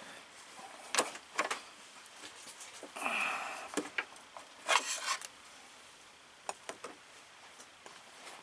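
Hose clamp pliers and a spring hose clamp being worked onto an upper radiator hose: scattered light clicks and rubbing of metal and rubber, with short rushing scrapes about three and five seconds in.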